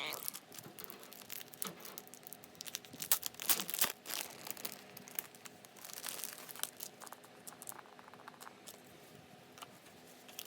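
Packaging being handled and unwrapped: irregular crinkling, rustling and tearing with scattered clicks, loudest about three to four seconds in.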